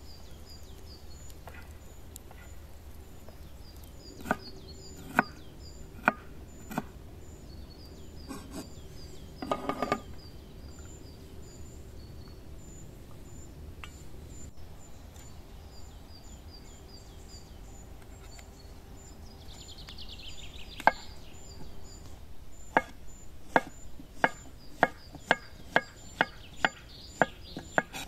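Kitchen knife chopping through button mushrooms onto a wooden cutting board: a steady run of sharp chops about twice a second through the last five seconds, after a few scattered knocks earlier on.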